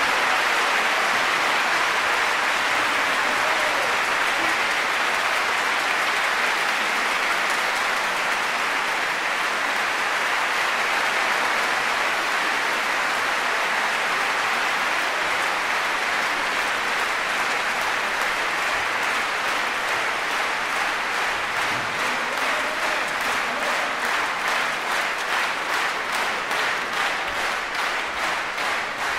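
Concert-hall audience applauding loudly and steadily. Over the last several seconds the clapping falls into a regular beat, the audience clapping in unison.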